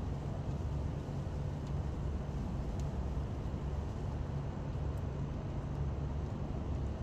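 Steady low rumble of motor vehicle traffic, unchanging throughout.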